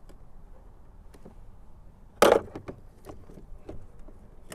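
Light clicks of hard plastic and one loud sharp knock about two seconds in, as a broken car door-mirror switch is worked loose from its plastic housing in the door trim.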